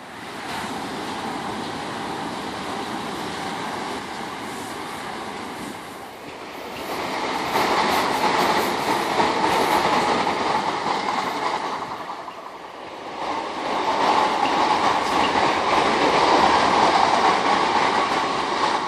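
A long Southern electric multiple-unit passenger train running past, its wheels rumbling on the rails. The noise swells about seven seconds in, dips briefly around twelve seconds in, then swells again.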